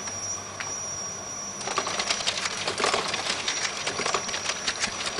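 A bank of slide projectors changing slides under computer cueing: a rapid, uneven run of mechanical clicks starts a little under two seconds in, over a steady high whine.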